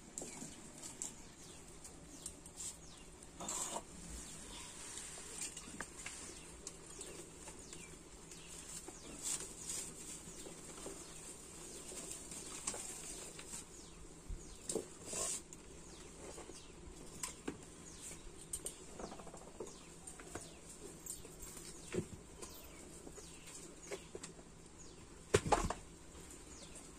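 Dry firewood twigs and metal cookware being handled at a wood-fired clay stove: scattered snaps, clicks and rustles, with a sharper knock near the end.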